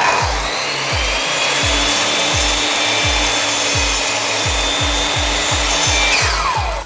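Power carving tool grinding into wood with a steady high whine; near the end its motor winds down in a falling tone.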